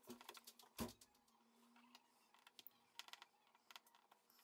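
Faint, scattered clicks and ticks of a precision screwdriver working the small screws out of a phone's frame, with one sharper click about a second in.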